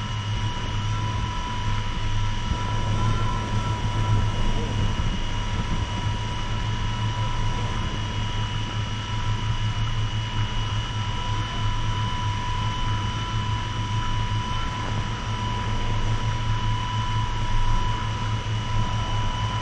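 7-inch FPV quadcopter's Brother Hobby 2507 1500KV brushless motors spinning 7040 tri-blade props in steady flight, a constant multi-tone whine over a rushing noise with no change in pitch.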